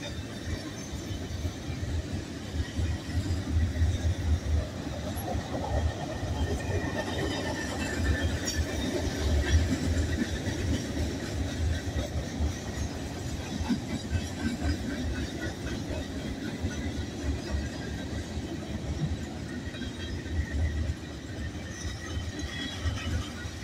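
Freight cars rolling past at a level crossing: a steady rumble of steel wheels on rail that swells and fades as cars go by, with faint high wheel squeals now and then.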